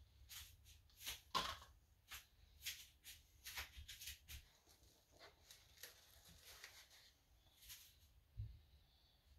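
Faint, irregular small clicks and taps, about a dozen, from plastic paint cups and wooden craft sticks being handled.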